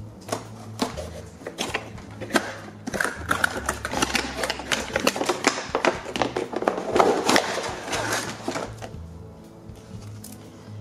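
Clear plastic and cardboard packaging crinkling and rustling in the hands as a toy horse's plastic tray is pulled from its box: a dense run of sharp crackles and clicks, busiest in the middle, over soft background music.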